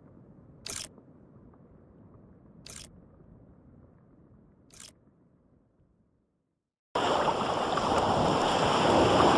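Sharp shutter-like clicks about every two seconds over a faint low rumble that fades away. About seven seconds in, a loud steady rush of water starts, spray along a sailing boat's hull.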